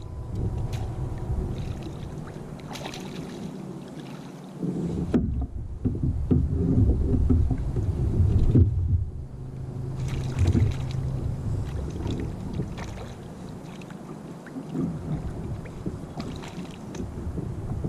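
A plastic sit-on-top kayak on the water: splashing and water moving against the hull, with scattered knocks, and some wind on the microphone.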